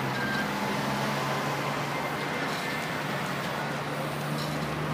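Truck-mounted crane's engine running steadily, a constant low hum with no change in pitch.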